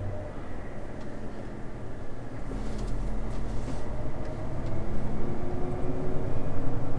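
A 510 bhp HGV's diesel engine running at low speed, heard from inside the cab as the truck crawls and turns. It gets louder for the last couple of seconds.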